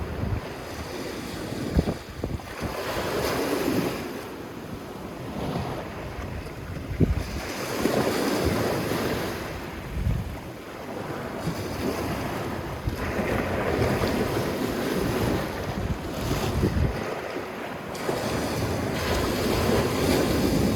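Sea waves washing onto a sandy beach, swelling and fading every few seconds, with wind buffeting the microphone in low thumps.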